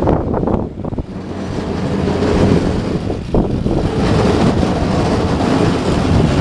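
Small home-built electric tractor running while ploughing snow, its steady mechanical noise building over the first couple of seconds and then holding.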